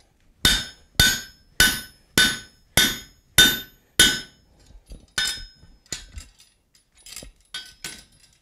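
Hand hammer striking a steel drift driven through a red-hot bar over the anvil's pritchel hole, opening up a punched hole. Sharp ringing blows come about every half second for four seconds, then lighter, uneven taps.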